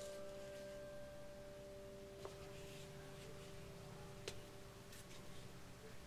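The last piano notes of soft background music ring on and fade away, joined by a few faint clicks.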